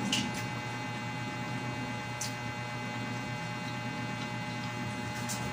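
Steady electrical hum with three brief, sharp mouth clicks spaced a couple of seconds apart: lip smacks from chewing food.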